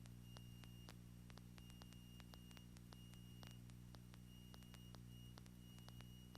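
Near silence on the aircraft's intercom recording feed: a faint steady electrical hum with faint ticking.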